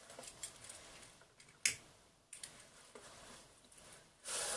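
Faint scattered clicks and rustles, with one sharp click about one and a half seconds in and a short, louder rush of noise near the end.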